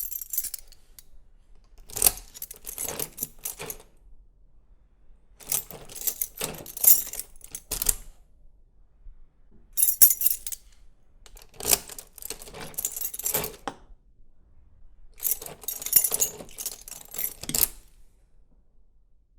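Key turned in a door lock, locking and unlocking it over and over: bursts of sharp metallic clicks and key rattle, each a second or two long, with short pauses between.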